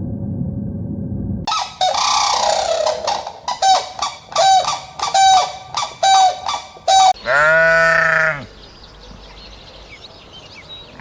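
Geese honking: a rapid series of short, nasal honks about one a second, then one longer, deeper call near the middle, followed by faint high chirps. A low rumbling noise runs until it cuts off about a second and a half in.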